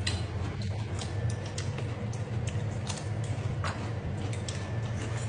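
Eating sounds: chewing with small scattered clicks and ticks, over a steady low hum.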